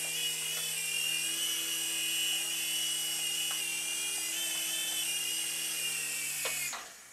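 Electric motors and rotor blades of a 9808 mini R/C helicopter whining steadily in flight, with slight shifts in pitch, then cutting off suddenly near the end.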